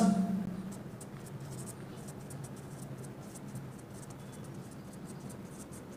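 Marker pen writing on a whiteboard: a steady run of faint, short scratchy strokes as a line of text is written.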